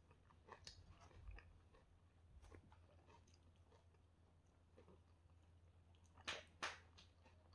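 Hands tearing soft flatbread and picking at chicken shawarma on a plate: faint scattered crackles and rustles, with two sharp crackles a little past six seconds in.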